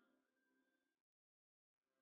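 Near silence: faint background music fades away, breaks off into total silence for under a second, then comes back faintly near the end.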